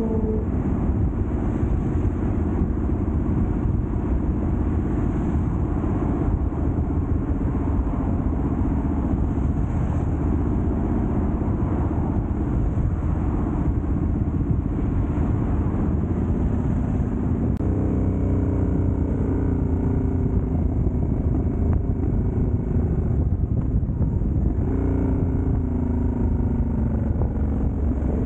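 Motorcycle engine running on the move, with a steady noisy rush over it. A sharp click comes about eighteen seconds in, after which the engine note wavers up and down.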